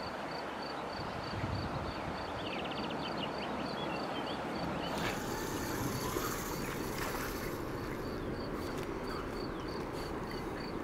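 Riverbank ambience: a steady wash of wind and water noise, with a faint high-pitched ticking repeating about four times a second. There is a stretch of rustling about halfway in, and a few light clicks near the end.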